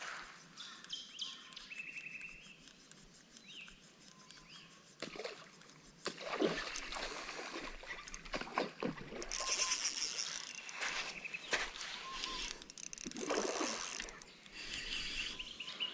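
Birds calling, then from about six seconds in, repeated splashing in shallow water along with the rustle and clatter of a spinning rod and reel being handled.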